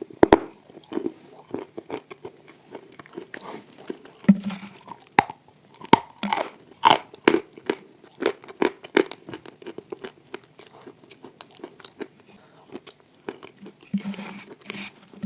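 Close-up crunching and chewing of wet chalk coated in clay paste: irregular crisp crunches and mouth sounds, busiest about six to nine seconds in.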